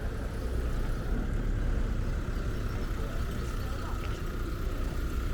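Town street ambience: a steady low rumble of passing and idling traffic.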